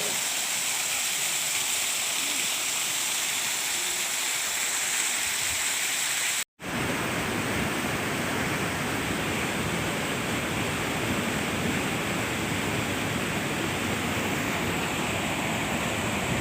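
Steady rushing of flowing water, like a hillside stream. About six and a half seconds in it cuts out for an instant, and after that it comes back with more low rumble.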